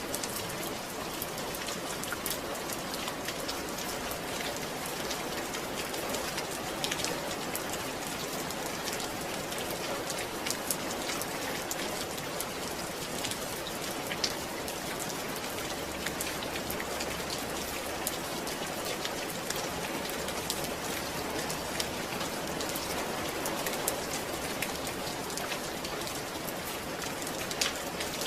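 Steady rainfall: an even hiss of rain with many separate drops striking close by, holding at the same level throughout.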